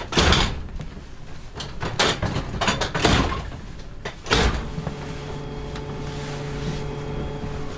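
Rotating train seat rows being swung around and knocking as they lock into place, several clunks in the first four seconds or so. A steady hum sets in about halfway through.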